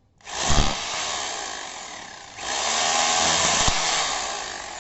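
DeWalt D25133K rotary hammer running in hammer-only (chipping) mode. It runs twice: a first burst, then a second louder one starting about halfway, tailing off near the end.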